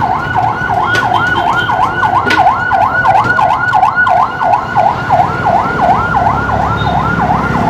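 Emergency-vehicle siren in a fast yelp, its pitch sweeping up and down about four times a second without a break, over a low rumble of road traffic.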